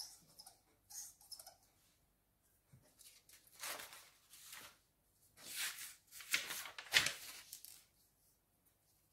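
Sheets of paper rustling and sliding on a tabletop as a finished drawing is lifted away and a fresh sheet put down, in two bursts, the second longer and louder. A few faint pen scratches come just before.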